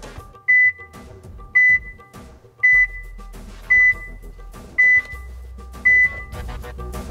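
Mammut Barryvox avalanche transceiver giving six short, high beeps about a second apart, over background music: the group-check tone showing that another participant's transceiver is being picked up within range.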